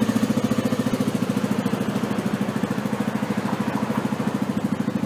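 2008 Suzuki Skywave SS scooter's single-cylinder engine idling steadily through an aftermarket muffler, an even pulsing beat of about a dozen pulses a second.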